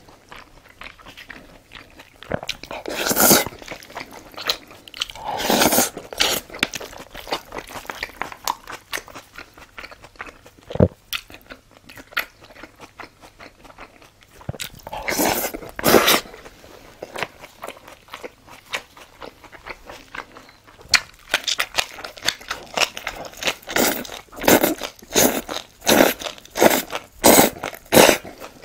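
Close-miked mukbang eating sounds. Long slurps of black-bean-sauce noodles come early and again about halfway. From about two-thirds of the way in there is loud, rhythmic crunchy chewing, about two bites a second.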